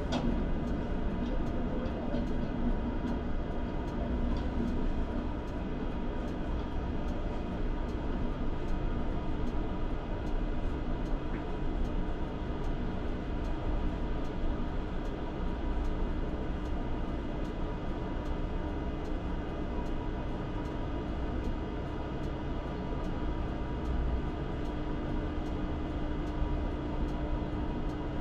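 Two-car ČKD Tatra T6A5 tram running along the track, heard from the driver's cab: steady running noise with a motor hum that grows stronger near the end, and a faint, regular ticking.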